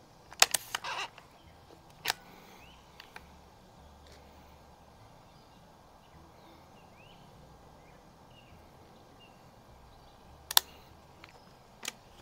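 Sharp metallic clicks and clacks of a Walther LGR air rifle's action being worked by hand: a quick cluster about half a second in, a single click at about two seconds, and a few more near the end. Faint bird chirps can be heard between them.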